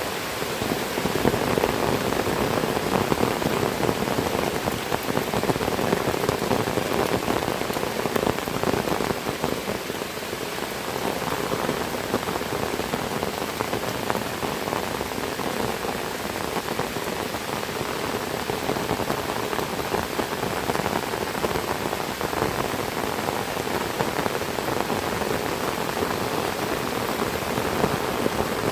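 Heavy rain falling, a steady, dense patter with no break.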